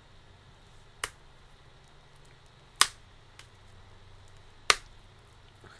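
Three sharp clicks, about two seconds apart, with a fainter tick between the last two, from fingers picking at a sticker on a vinyl record's plastic shrink wrap.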